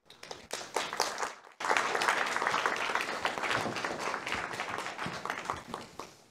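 Audience applauding: a few scattered claps at first, then the whole room joins in about a second and a half in, and the applause slowly tapers off near the end.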